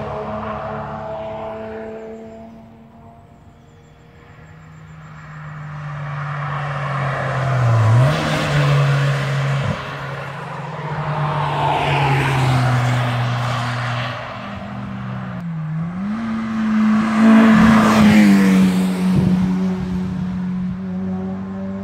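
Cars at track speed pass one after another, engines under hard acceleration: one fades away, then another approaches, its engine note dipping and climbing again twice as it shifts up, and is loudest as it passes near the end.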